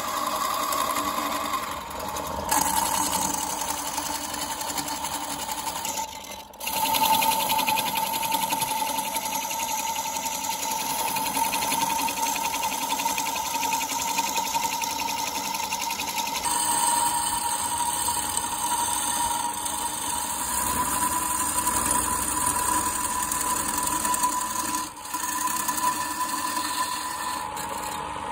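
Wood lathe running with a steady whine while a hand-held gouge cuts into the spinning wooden workpiece. The sound dips briefly twice, about a quarter of the way in and near the end.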